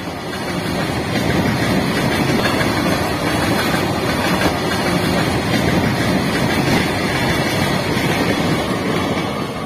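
Freight train of open-top goods wagons passing close by on the rails, a steady loud rush of wheel and wagon noise. It builds up over the first second and eases off near the end.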